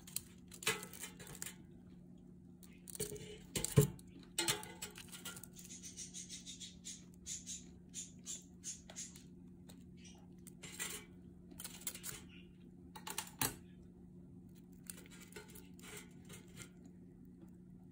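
Crispy air-fried pork knuckle skin crackling as it is pulled apart with metal tongs and fingers in a perforated metal air fryer basket. The tongs knock sharply against the basket a few times, loudest about 4 seconds in. A low steady hum runs underneath.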